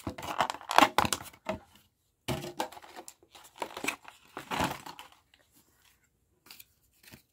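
Clear plastic blister packaging crinkling and crackling as hands handle it, in irregular bursts that die away about five seconds in.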